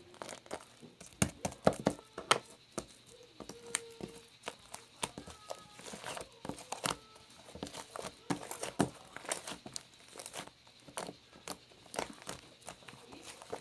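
Irregular crinkling and crackling with many sharp clicks at no steady rhythm: something being handled and crumpled close to the microphone.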